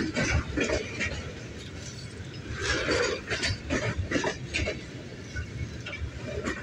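Herzog gravel-train hopper cars rolling past on the rails, their wheels and couplers clanking and knocking irregularly over a steady rumble.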